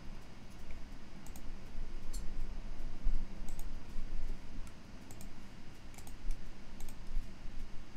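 Scattered sharp clicks, about seven at irregular intervals, over a steady low hum.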